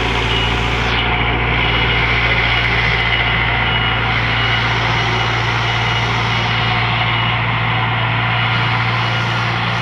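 Heavy earth-moving machine's diesel engine running steadily, a continuous low drone.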